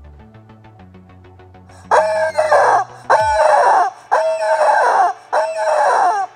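Rubber chicken toy squeezed four times, each squeeze a loud squawk lasting about a second, starting about two seconds in. Faint music with a steady beat plays before the first squawk.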